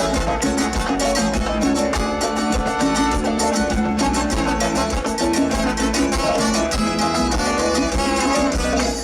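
Live Latin dance band playing an instrumental passage, with strummed guitar and steady percussion and no singing.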